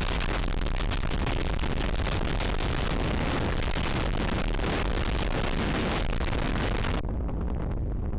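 Strong wind buffeting the microphone aboard a sailing yacht, a loud steady rumble with hiss. About seven seconds in, the hiss drops away sharply and a lower rumble carries on.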